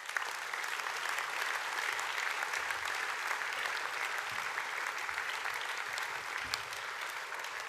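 Audience applauding in a hall: many people clapping steadily together, holding an even level.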